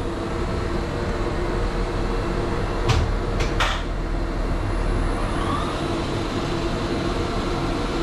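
Steady mechanical drone of elevator machine-room equipment, with a low hum, three short clicks about three seconds in, and a faint rising whine near the five-second mark.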